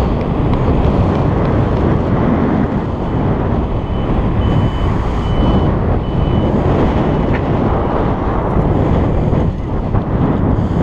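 Wind buffeting a GoPro microphone on a moving bicycle: a loud, steady rumble that flutters in level. About four seconds in, a faint high-pitched tone sounds in short repeated pulses for a couple of seconds.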